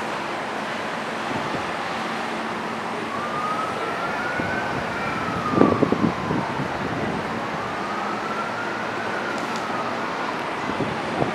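An emergency-vehicle siren in a slow wail, rising and falling twice, over a steady background of train and traffic noise. A quick run of knocks about halfway through is the loudest sound.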